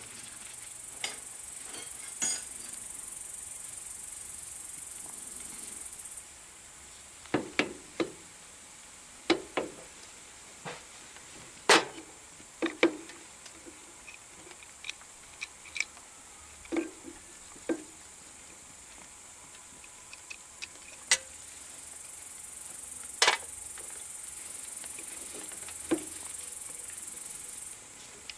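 Scattered sharp clicks and knocks of a starter motor's metal housing and bolts being handled and fitted against a Briggs & Stratton engine block. A steady high hiss is there in the first six seconds and again in the last few.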